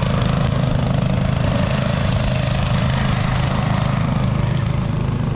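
Go-kart engine running steadily under throttle.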